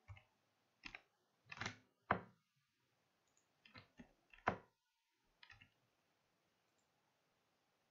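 Computer keyboard keystrokes and mouse clicks, single sharp clicks spaced out with pauses, while a MAC address is typed field by field.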